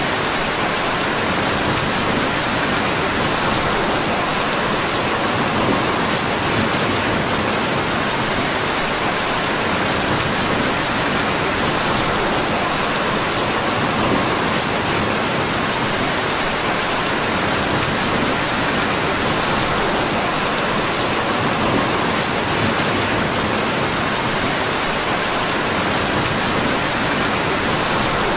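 Steady rain, an even, unbroken hiss with a few faint ticks in it.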